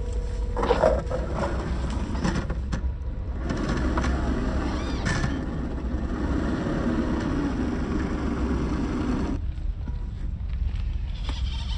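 Electric drivetrain of a 1/10-scale RC rock crawler whirring as it crawls over rock and log, with a few knocks about a second in; the running sound stops abruptly about nine seconds in. A low rumble sits underneath throughout.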